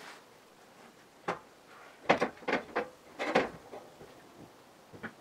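Irregular wooden knocks and clunks: an old wooden window sash being handled and carried out through the loft floor opening. One knock about a second in, a quick cluster of several from about two to three and a half seconds, and one more near the end.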